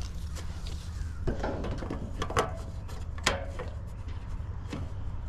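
Round plastic cover being handled and fitted onto the metal fan grille of a heat pump package unit: scraping with a few sharp clicks and knocks, the loudest about one and a half, two and a half and three and a quarter seconds in.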